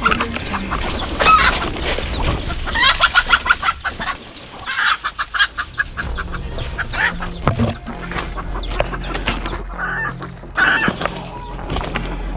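Outdoor ambience with birds calling, including a string of short high chirps through the middle. About three seconds in there is a quick rattle of clicks.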